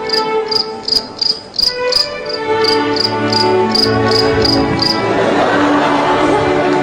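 Cricket chirps used as a night-time stage sound effect, short high chirps about three a second, over soft sustained background music. The chirps stop about five seconds in, and a louder, noisier sound swells up under the music.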